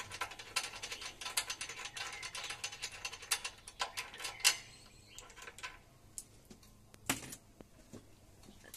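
Rapid, irregular mechanical clicking and rattling from the mini tiller's handlebar fitting being worked by hand. It is dense for about four and a half seconds, then thins to a few scattered clicks, with one louder click near the end.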